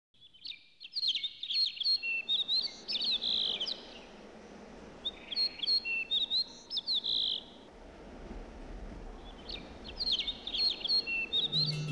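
A bird singing in three phrases of quick chirps and whistled notes, with short pauses between them, over a faint steady background hiss.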